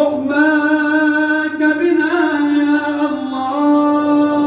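A man's voice chanting a du'a, drawing out one long melismatic note that comes in suddenly and is held with small turns in pitch, dipping briefly about two seconds in and settling again near the end.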